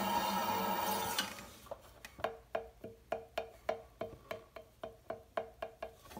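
Electric potter's wheel running with a trimming tool scraping the clay, cutting off about a second in. Then a steady run of sharp taps, about three a second, each with a brief ring, as the leather-hard teapot piece is tapped to centre it on the slowly turning wheel head for trimming.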